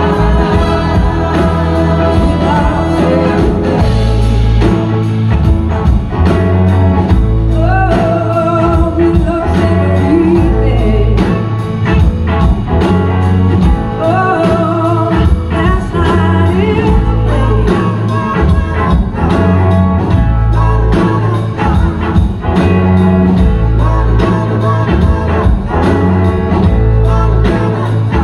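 Blues-rock band playing live, with a woman singing over electric guitars, bass and drums, heavy in the bass.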